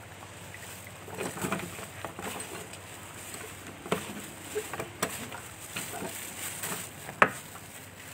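Battered banana fritters deep-frying in a wide pan of hot oil: a steady sizzle with irregular crackles and pops, the sharpest about seven seconds in.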